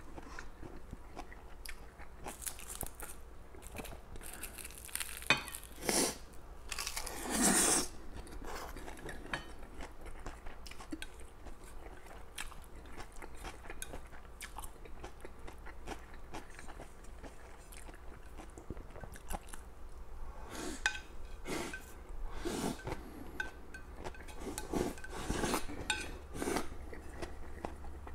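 Close-miked eating: chewing and crunching on crisp roasted seaweed and stir-fried noodles, with now and then wooden chopsticks clicking and scraping against a ceramic plate.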